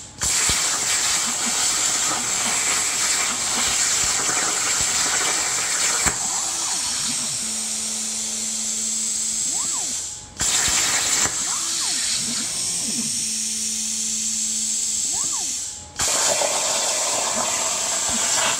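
CNC plasma cutter cutting steel plate: a loud, steady hiss of the arc and air that stops abruptly twice, about ten and sixteen seconds in, and restarts straight away. Faint rising-and-falling whines of the gantry motors accelerating and slowing come and go underneath.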